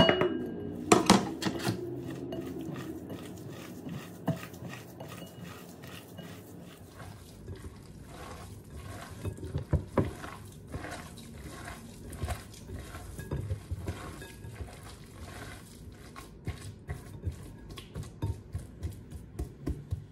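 Ground-meat stuffing being mixed by hand in a glass bowl, with a steady run of soft knocks and clinks against the glass, louder in the first couple of seconds.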